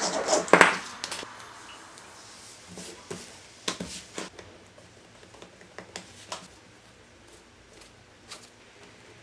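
Leather strips and pieces being handled and pressed by hand on a workbench during gluing. A brief rubbing noise comes at the start, then a few scattered light taps and rustles over quiet room tone.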